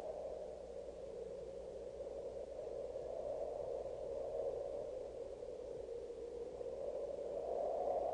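Wind sound effect: a hollow rushing that slowly rises and falls in pitch, over a faint steady low hum.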